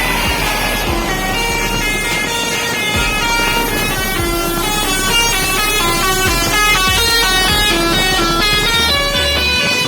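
Telolet multi-tone air horns on tour buses playing fast stepping melodies, several tunes overlapping, with bus engines running underneath.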